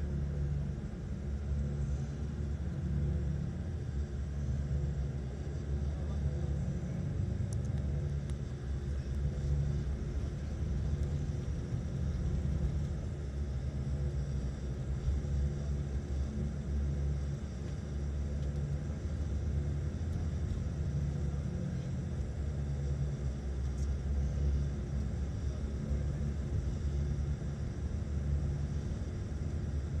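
Steady low rumble of engine and road noise heard from inside a moving vehicle's cabin as it drives along a highway.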